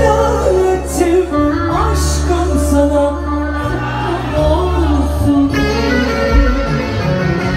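Live band music played through a concert PA: a melody line with pitch slides over a steady bass.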